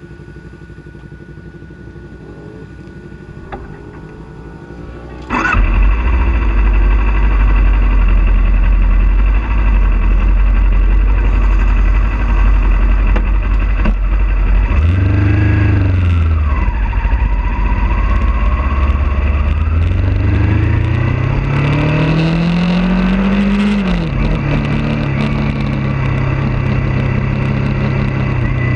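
Kawasaki Ninja 400 parallel-twin engine heard onboard. It runs quietly and steadily for about five seconds, then turns suddenly much louder with a heavy low rumble. Its pitch rises and falls, then climbs for several seconds before dropping abruptly, as at an upshift.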